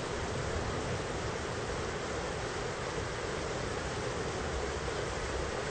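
Thunderstorm rain falling steadily, an even hiss with no thunderclap.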